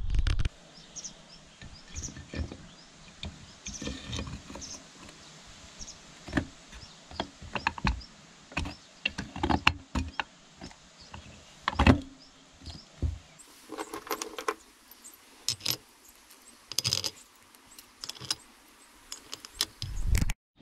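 Hand work on a two-stroke engine's aluminium crankcase: irregular metallic clinks, taps and knocks as the cover and parts are handled, fitted and set down on a wooden workbench. The sharpest knocks come about 2, 8 and 12 seconds in.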